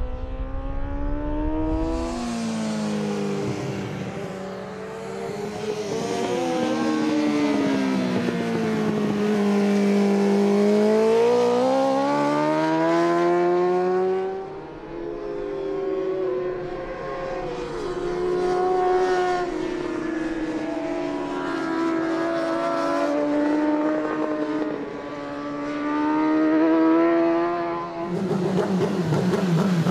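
Superbike racing motorcycle engine at full race pace, its pitch falling as it slows into corners and rising again as it accelerates out. The sound changes abruptly twice as the view switches from one trackside spot to another.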